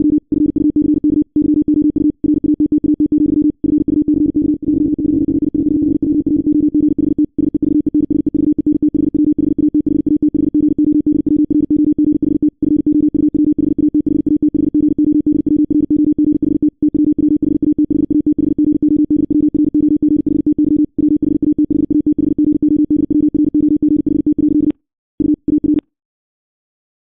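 Intercepted Morse code: a single low-pitched beep keyed on and off in fast dots and dashes, stopping abruptly a second or so before the end.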